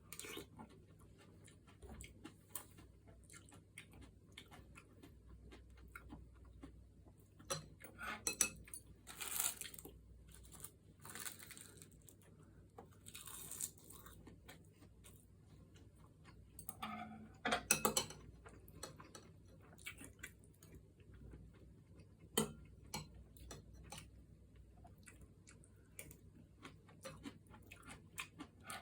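Quiet eating sounds: light clicks and taps of utensils on dishes, with a few short louder noises, the loudest about 17 to 18 seconds in.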